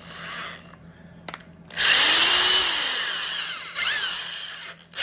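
A small power tool with a cloth polishing disc fitted, run briefly with nothing against it: the motor spins up and winds down over about two seconds, then runs again for a shorter burst near the end.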